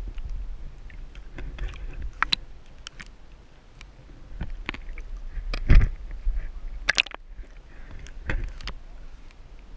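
River heard underwater through an action camera's housing: a low, muffled rumble with scattered sharp clicks and knocks, the loudest about six and seven seconds in.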